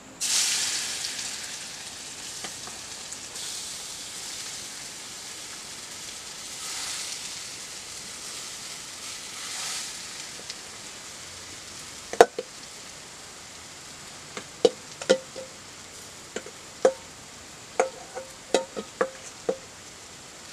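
Ingredients hitting hot oil in a wok: a sudden sizzle that fades over a couple of seconds and swells again twice. Later a metal spoon knocks against a steel bowl, one loud ringing clank followed by a string of lighter ringing taps as the mixture is scraped into the pan.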